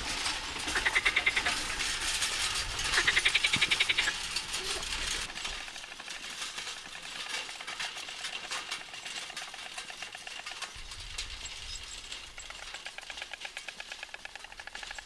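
Frogs calling in rapid pulsed trills, in bouts about a second long, for the first five seconds. After an abrupt change it gives way to a quieter, fast, even ticking.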